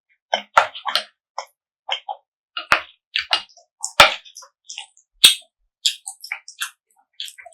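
Close-miked eating sounds: crisp, wet chewing and mouth clicks and smacks in quick irregular strokes, the sharpest of them about a second apart near the start and middle.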